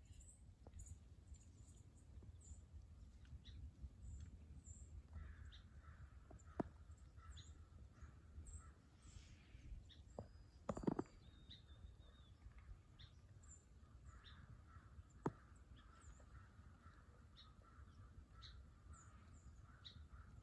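Faint outdoor birdsong: scattered short, high chirps of small birds throughout, with a rougher, lower chorus of calls from about five seconds in. A few sharp clicks are heard, the loudest about eleven seconds in.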